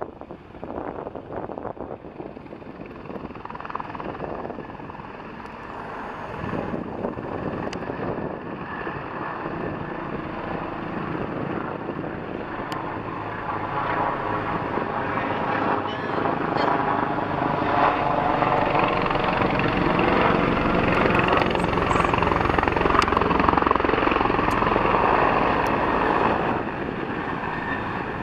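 A firefighting helicopter's rotor beating steadily as it circles low. It grows louder as the helicopter comes close, is loudest in the second half, and eases a little near the end.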